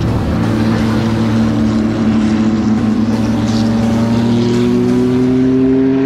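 Race car engines running loud and steady, their pitch rising slowly through the second half.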